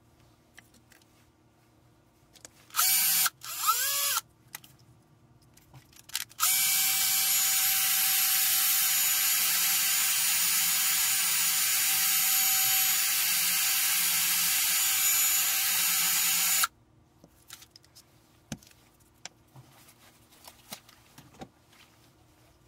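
Cordless drill motor pulsed twice briefly, its pitch rising and falling, then run steadily for about ten seconds before it cuts off suddenly. Faint handling clicks follow.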